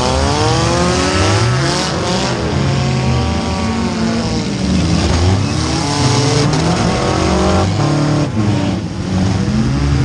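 Four-cylinder demolition derby car engine revving up and down hard, heard from inside the stripped-out car, its pitch rising and falling every second or two as the driver gets on and off the throttle.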